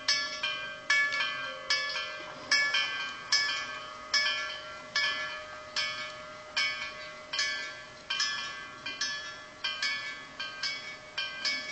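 Level crossing warning bells ringing, struck over and over, a loud strike about every 0.8 s with fainter strikes between them, each one ringing on. It is the warning that a train is approaching while the barriers come down.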